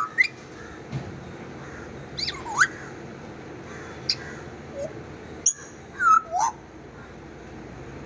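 African grey parrot giving a series of short whistles, about half a dozen, several sweeping down and then back up in pitch.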